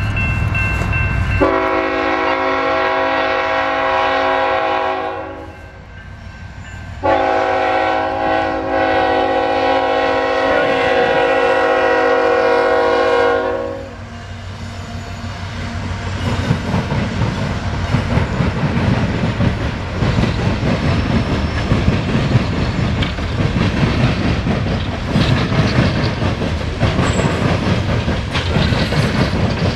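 CSX diesel freight locomotive sounding its air horn in two long blasts, the second one longer. The locomotive then rumbles past, and loaded coal hopper cars follow, clattering over the rail joints in a steady clickety-clack.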